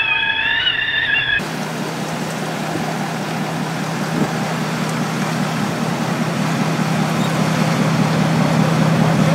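A high wavering cry that cuts off abruptly about a second in, then a steady rushing noise with a low steady hum from a running vehicle engine, growing slightly louder.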